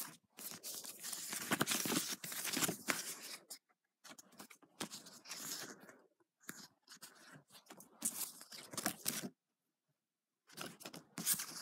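Printed photos being handled and slid over one another, paper rustling and scraping in four bursts with short pauses between.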